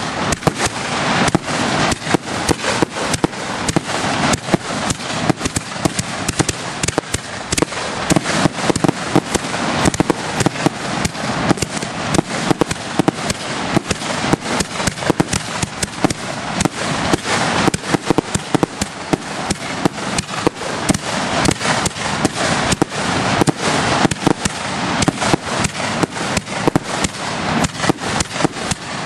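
Aerial fireworks display in a heavy barrage: shell bursts going off in rapid, irregular bangs, several a second, with no break.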